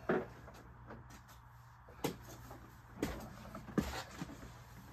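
A few scattered knocks and clunks of tools and objects being handled and moved about, one at the very start and others about two, three and nearly four seconds in, over a faint steady low hum.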